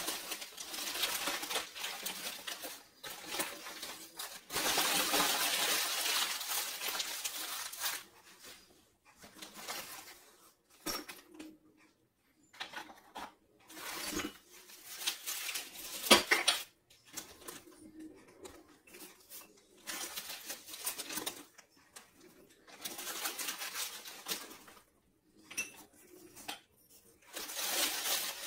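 Crinkling of packaging and light clinks and taps of small baked-clay pots and pieces being unwrapped and handled, in irregular stretches with pauses between, and one sharp clack about 16 seconds in.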